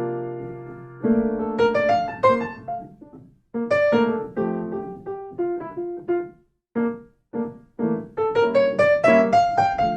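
A piano-voiced keyboard played solo: struck chords and quick note runs, each note dying away, with a couple of short breaks in the middle and a rising run near the end.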